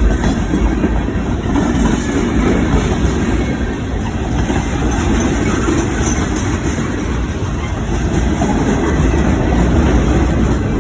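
Train running on rails: a steady, loud rumble of wheels and cars.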